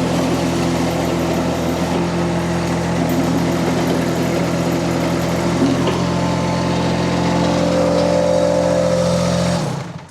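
Mini skid steer's Kubota D1105 three-cylinder diesel engine running steadily, then shut off just before the end, the sound stopping suddenly.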